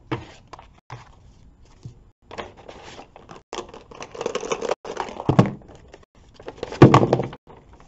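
Paper and plastic rustling and crinkling in irregular bursts as a kraft paper envelope is handled and items are pulled out of it, with two louder handling bumps, about five and about seven seconds in.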